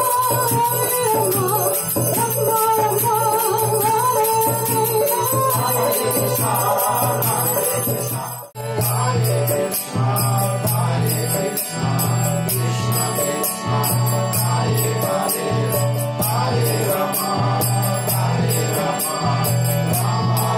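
Kirtan music: voices chanting a mantra over a steady pulsing drone, with small hand cymbals (kartals) jingling in a fast rhythm. The sound cuts out for a moment about eight and a half seconds in.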